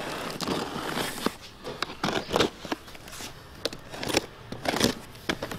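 A blade slitting the packing tape along a cardboard box's seam, then the box opened: irregular scrapes, crackles and rustles of tape and cardboard.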